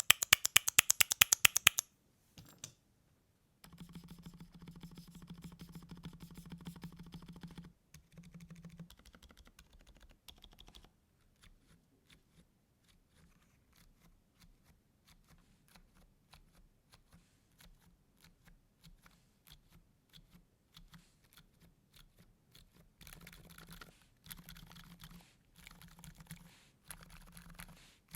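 Typing on an Akko 5087B Plus mechanical keyboard fitted with lubed Gazzew Boba U4 silent tactile switches: soft, muffled keystrokes, sometimes in fast runs and sometimes sparse. In the first two seconds there is a quick run of loud, evenly spaced clicks.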